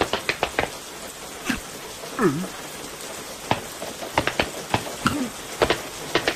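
Cartoon rain sound effect: a steady patter of rain with irregular single drips landing sharply, plus a short sliding tone about two seconds in and a softer one near five seconds.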